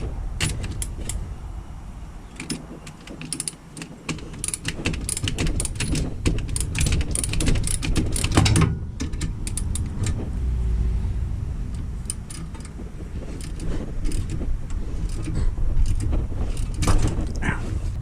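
Irregular metallic clinks and knocks of hand tools and suspension hardware being handled during a coilover install, coming thickest in the middle, over a low background rumble.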